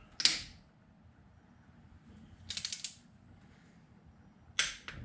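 Long ratchet-head torque wrench clicking on loose cylinder head bolts as they are tightened: one sharp click just after the start, a quick run of ratchet clicks in the middle, and another sharp click near the end.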